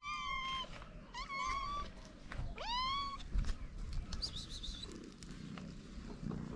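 Street cats meowing: three clear meows in the first three seconds, the third swooping up in pitch as it begins.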